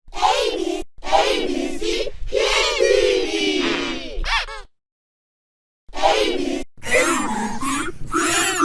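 Heavily effects-processed audio of a children's TV channel intro: several layered, pitch-shifted voices gliding up and down together. It cuts to dead silence about four and a half seconds in and comes back about a second later.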